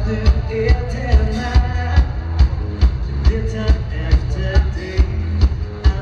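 A dansband playing live in a hall, with a drum kit keeping a steady, quick beat, about two beats a second, under electric guitar and keyboards.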